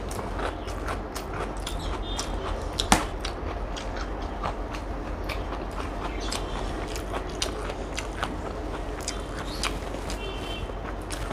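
Close-up chewing and mouth clicks of someone eating biryani, with fingers picking through the rice on a plate. Many small clicks and a few brief high clinks, with one sharper click about three seconds in.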